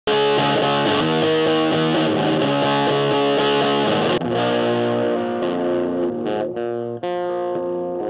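Distorted electric guitar playing a run of changing chords and notes, without drums. About four seconds in, it thins to fewer, longer ringing notes.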